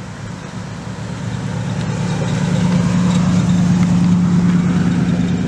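1955 Plymouth Savoy driving past: a steady engine note that grows louder as the car approaches, is loudest a few seconds in, then fades as it goes by.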